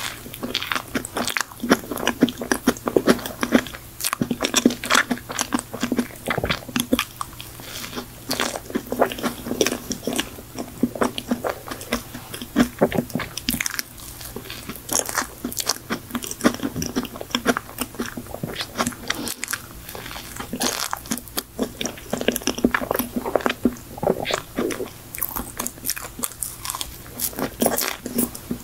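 Close-miked biting and chewing of a soft, cream-filled folding cake: a dense, unbroken run of quick mouth clicks and smacks.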